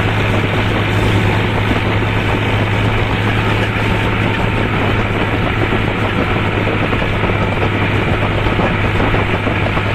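Farmtrac tractor's diesel engine running steadily as the tractor drives along a road, heard from the driver's seat: a loud, even drone with a constant low hum.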